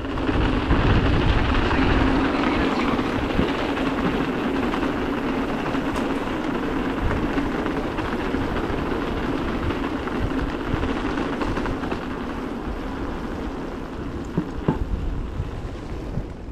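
Mountain bike rolling over stone cobbles: a steady rumble of the tyres on the stones with the bike rattling, and a few sharper clicks near the end.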